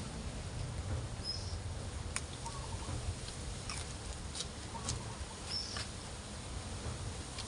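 Wind buffeting the microphone as a steady low rumble, with scattered light ticks and two short high chirps, one about a second in and one near the six-second mark.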